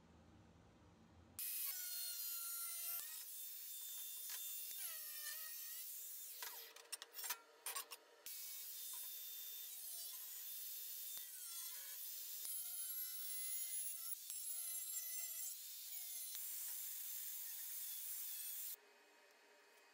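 Bosch angle grinder with a cutting disc slicing through 2 mm stainless steel sheet. It is a high hissing grind over the motor's whine, and the whine dips in pitch each time the disc bites and then recovers. It starts about a second and a half in, breaks off a few times briefly partway through, and cuts off near the end.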